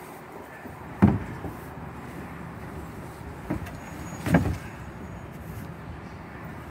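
Two thumps of a plastic kayak hull knocking against the rack as it is pushed up into place by hand, the first, about a second in, the louder, over a steady low background noise.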